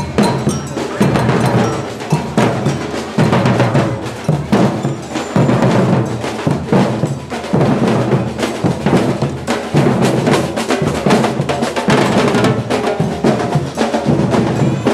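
Drums playing a busy, fast rhythm, with snare and bass drum hits.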